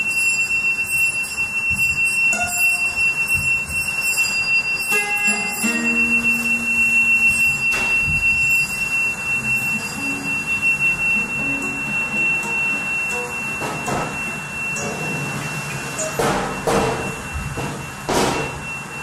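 Improvised experimental music from electric guitar, bell and struck or scraped found objects. A thin, high, steady tone holds throughout while short pitched notes and sharp knocks come and go. Noisy rasping swells rise near the end.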